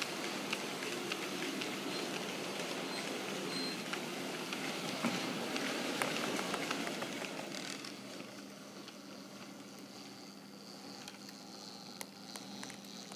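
Model freight train rolling past on layout track: the wagons' wheels clatter steadily with small clicks over the rail joints. About eight seconds in the clatter drops away and a faint steady high whine is left as the pusher tank locomotive passes.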